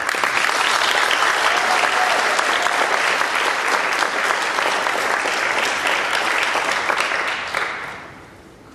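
Audience applauding, dense and steady, dying away about eight seconds in.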